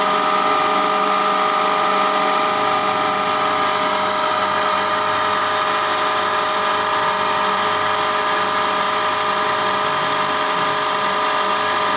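Milling machine running, its end mill cutting a spline groove along a metal shaft: a steady machine whine made of several held tones, with a higher-pitched tone joining about two and a half seconds in.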